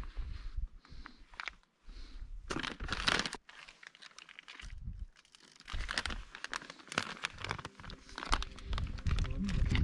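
Foil military ration pouch crinkling and rustling in the hands in irregular bursts as it is opened and water from a plastic bottle is added to it.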